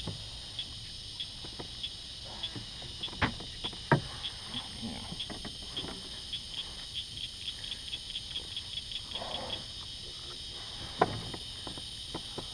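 Evening insect chorus: a steady high drone with a run of short, sharp high clicks that speed up through the middle. It is broken by a few loud knocks of gear being handled in a kayak.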